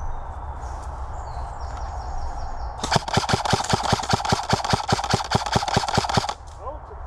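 Airsoft gun firing one long rapid burst, about seven sharp cracks a second for about three seconds. It starts about three seconds in and stops abruptly.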